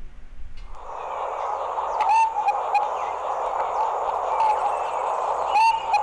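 Recording of a Dusky Pigeon calling, with short notes about two seconds in and again near the end, over a steady hiss of background noise.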